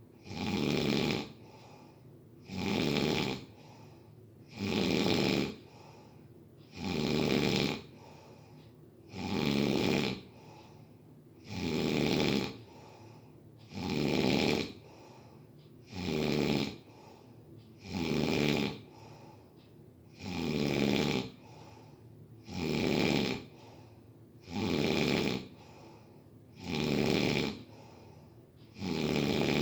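Steady, rhythmic snoring: about fourteen loud snores, one roughly every two seconds, each lasting about a second, with quieter breathing gaps between them.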